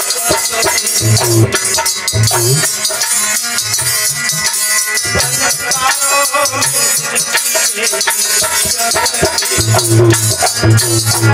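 Live Hindi devotional song to goddess Durga: a male voice singing a vandana over fast jingling percussion and a low repeating bass line.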